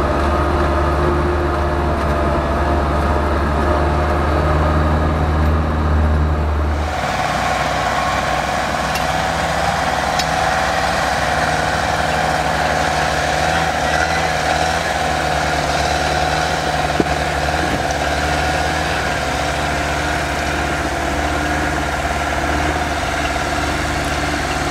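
Unimog 421's diesel engine running at low speed as the truck crawls over rough off-road ground. It is first heard from inside the cab as a heavy low drone, then after a sudden change about seven seconds in it is heard from outside, with a steady whine over the engine. There is a single sharp knock partway through.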